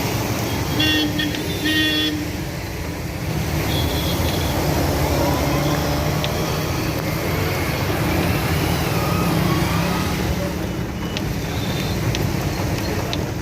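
Road traffic: vehicle engines running in a steady rumble, with car horns honking, two short blasts about a second in and a few more later.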